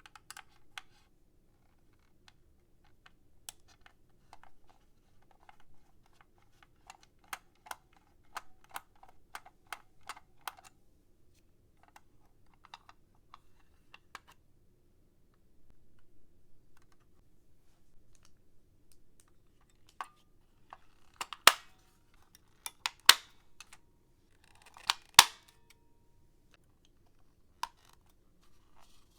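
Packaging being handled and opened by hand: scattered light clicks and rustles, then several sharper, louder clicks about two-thirds of the way through.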